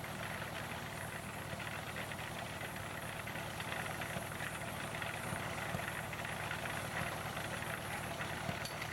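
Steam engine running steadily while it powers a sawmill.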